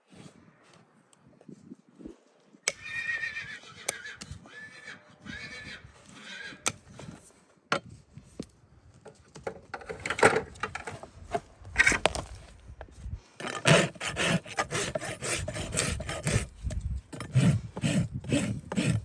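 A horse whinnies, a wavering call lasting about three seconds, about three seconds in. Then comes a run of rough scraping strokes that grows quicker and louder towards the end, in keeping with a farrier working the hoof.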